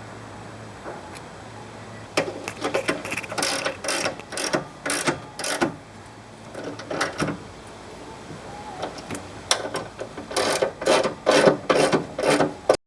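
Hand ratchet wrench clicking rapidly as nuts are run down onto the radius rod plate's studs, in two spells of quick strokes with a pause between.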